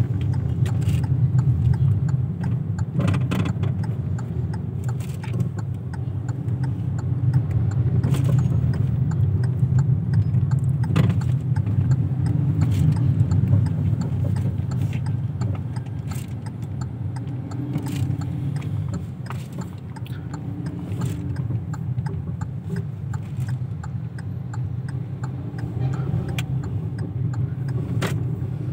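A car driving, a steady low rumble of engine and road noise, with scattered light clicks and rattles.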